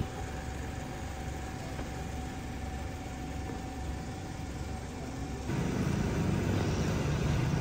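A vehicle engine idling: a steady low hum with a faint steady tone above it. About five and a half seconds in, the hum gets louder and deeper.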